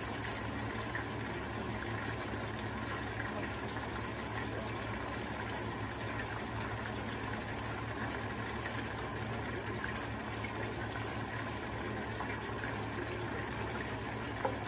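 Chicken pieces and egg-battered cauliflower frying in hot oil: a steady sizzling hiss, with a low steady hum underneath.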